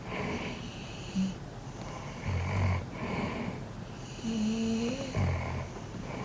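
Pit bull snoring heavily in its sleep, in repeated noisy breaths, with two deeper, louder snores about two and five seconds in.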